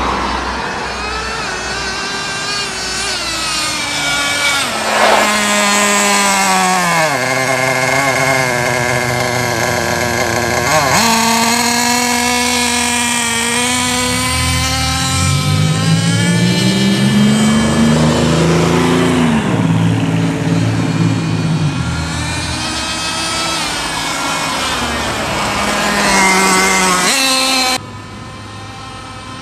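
Traxxas Jato nitro RC truck's small glow-fuel two-stroke engine running hard, its pitch rising and falling again and again as it is throttled up and down. The sound drops away sharply near the end.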